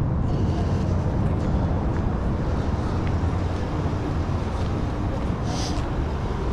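Steady low vehicle rumble with a constant level, like a running engine or traffic close by, with a few faint light clicks over it.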